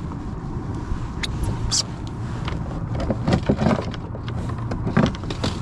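Scattered clicks and knocks from handling freshly caught white bass on a plastic kayak deck, over a steady low rumble.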